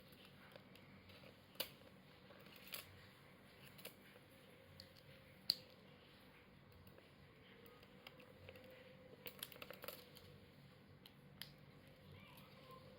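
Scattered light clicks and taps from handling a ThinkPad X270 laptop and small tools during disassembly, with one sharper click about five and a half seconds in and a quick run of small clicks near the nine-to-ten-second mark.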